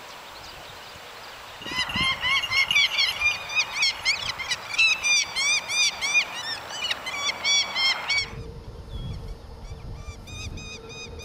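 Saker falcon calling: a rapid series of loud, high, harsh calls, several a second, for about six seconds, then fainter calls continuing.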